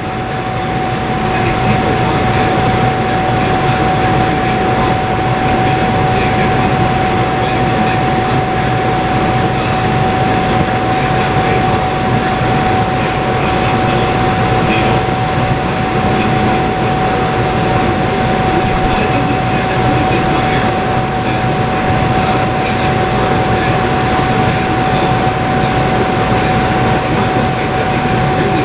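Air conditioner running, a loud, steady rush of blown air with a constant whining tone over it.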